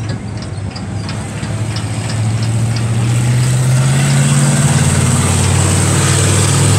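A vehicle engine running, its pitch and loudness rising over the first four seconds or so, then holding steady.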